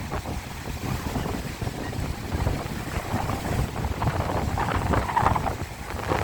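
Sea waves breaking on a beach, with wind buffeting the microphone into a low rumble. A louder wash of surf comes about four to five seconds in.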